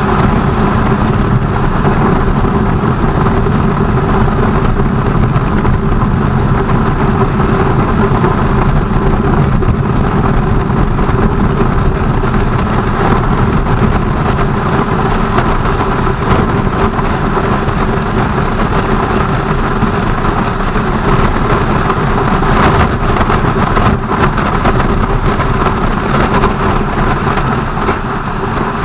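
BMW R 1200 GS boxer-twin engine running steadily, under a constant rush of wind and road noise.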